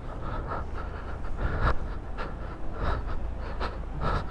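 A person breathing hard close to the microphone, in short irregular breaths, over a low steady rumble.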